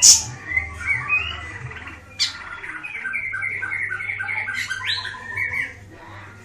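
Siri-siri bird singing. A sharp high note opens the song, followed by varied chirps and, in the middle, a fast run of repeated notes with a rising sweep near the end.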